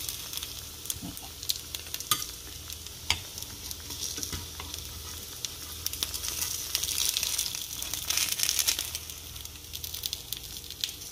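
A hot nonstick frying pan crackles and sizzles under water-fried gyoza as the last moisture cooks off, with a dense run of sharp ticks. Slotted metal tongs click against the pan while lifting the dumplings. The sizzle swells for a couple of seconds past the middle.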